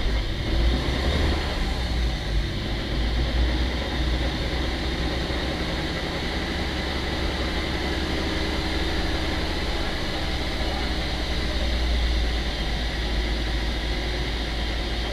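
Subaru Forester with an EJ205 engine driving, a steady low engine and road rumble.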